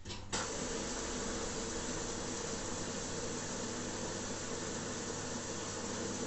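Zanussi Aquacycle ZWF1632W washing machine starting to fill: a steady rush of water hiss with a low electrical hum starts suddenly just after the beginning and holds steady.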